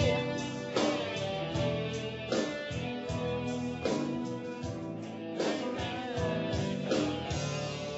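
Instrumental backing track with strummed guitar chords coming in about once a second under sustained held notes, without a voice on it.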